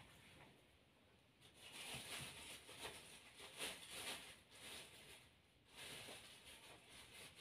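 Faint rubbing swishes of a massage, hands stroking over skin in a few short passes about a second and a half in, then again near the end.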